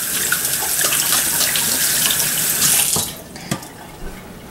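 Kitchen faucet running into a stainless steel sink while hands are rinsed under it. The tap is shut off about three seconds in, followed by a single light knock.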